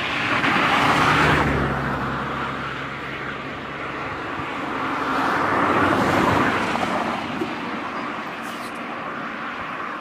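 Road traffic passing: a car's noise swells and fades about a second in, and a second vehicle passes around six seconds.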